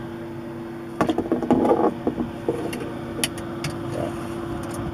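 Steady hum of a small pancake fan running, with a burst of clattering about a second in and a few sharp clicks later on.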